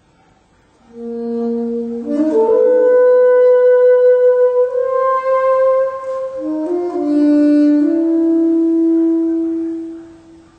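Alto saxophone playing a slow solo line of long held notes, moving between a few pitches. It enters about a second in and fades away near the end.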